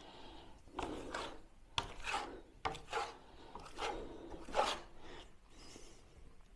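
A wide plastering spatula scraping and spreading a wet, sloppy skim coat of plaster on a wall and scooping it from the bucket: a run of short scraping strokes that thin out near the end.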